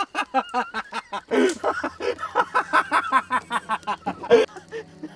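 A man laughing in a fast run of short, breathy bursts, giggling with glee. A low steady drone comes in under it about a second and a half in.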